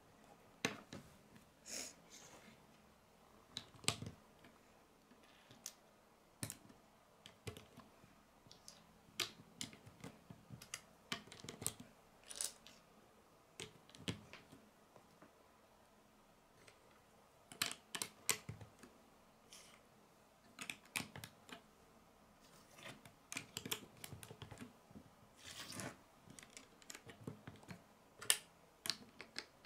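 Lego plastic plates and bricks being pressed together and set down on a wooden table: faint, irregular clicks and taps, often several in quick succession, with short pauses between.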